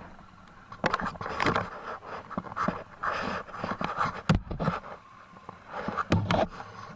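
A person breathing hard in ragged, irregular gasps close to the microphone, with two sharp knocks, one a little past the middle and one near the end.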